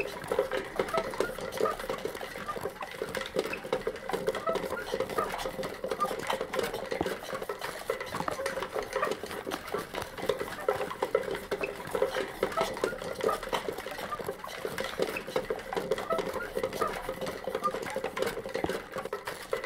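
Homemade foley of a wooden wagon rolling, made with a toilet-paper holder and wooden boxes: a continuous clattering, creaking rattle of wood with small squeaks mixed in.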